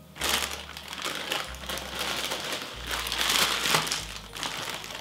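Crinkling plastic of a bag of Airheads mini bars being rummaged through by hand, starting a moment in and going on almost to the end.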